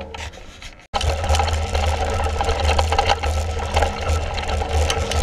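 Mountain bike rattling and clattering over a rough dirt farm track, with wind rumbling on the handlebar-mounted camera's microphone. The sound starts abruptly about a second in, after a brief dropout.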